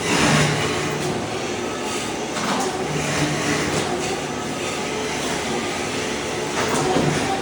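Ride-on floor scraper running steadily, its blade scraping thin-set tile mortar off a concrete slab. The scraping swells louder several times over the machine's low hum.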